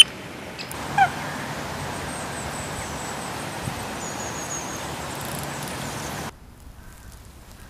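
Outdoor ambience with a steady hiss of wind, and one short, loud call gliding downward about a second in, like a water bird's call, with a few faint high chirps later; the background hiss drops away suddenly near the end.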